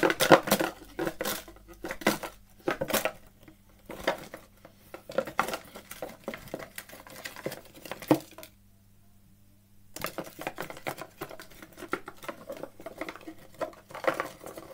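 Cardboard box and the paper Squishmallow tags inside it being handled: the box opened, then irregular clicks, taps and rustling as a hand rummages through the tags. The sound drops out almost completely for about two seconds midway.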